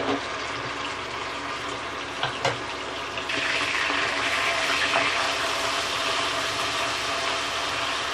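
Ginger-garlic paste sizzling in hot oil and ghee in a frying pan, being fried until light brown. The sizzle gets louder about three seconds in, once a spatula starts stirring it, just after two light knocks.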